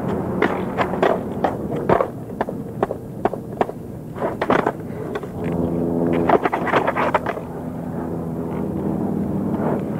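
Skateboard doing freestyle tricks on asphalt: wheels rolling, with the tail and deck clacking against the ground again and again as the board is flipped, stalled and stepped back onto. A steady hum sits under the second half.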